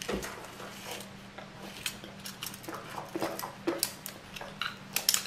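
Scattered clicks and light clatter of an opened plastic tape measure and its steel blade being handled.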